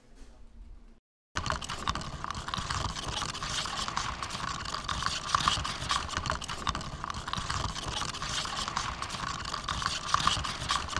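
Ice rattling in a lidded plastic cup as a plastic straw is jiggled and stirred up and down through the lid: a loud, continuous clatter of small clicks and scraping that starts abruptly about a second in.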